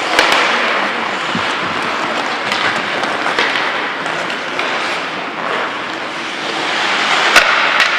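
Ice hockey play: skate blades scraping on the ice make a steady hiss, broken by a few sharp clacks of sticks and puck, the loudest near the end.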